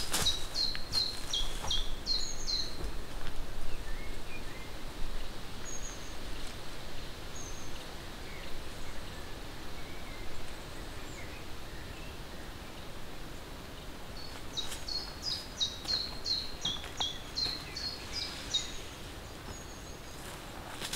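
A songbird sings two bursts of song, each a quick run of short, high, down-slurred notes lasting a couple of seconds: one right at the start and another about two-thirds of the way through, with a few faint chirps between. Light rustling and small knocks come from a tarp and cord being rigged between trees.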